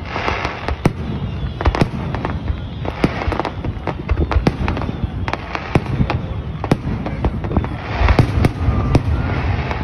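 Aerial fireworks display: a rapid, uneven series of shell bursts and cracks, several a second, growing denser and louder about eight seconds in.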